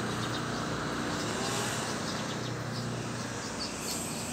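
Steady outdoor background hum, like a distant motor, with a few faint, short high chirps.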